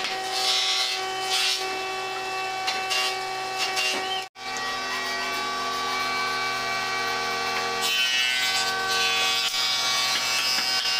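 Hand tool scraping on wood in a few separate strokes, over background music of steady held tones. Everything cuts out for a moment about four seconds in.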